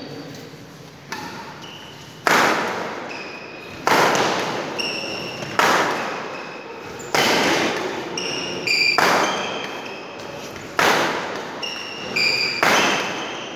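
Badminton training in a large, echoing hall: seven loud, sharp impacts come at an even pace, about one every one and a half to two seconds. Short high squeaks of court shoes on the mat come between them.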